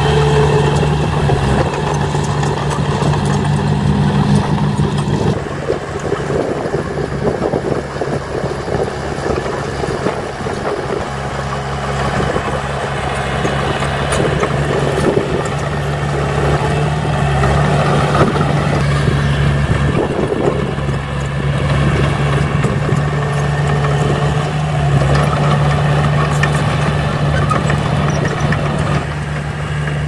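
Small crawler bulldozer's diesel engine running steadily as the dozer pushes soil.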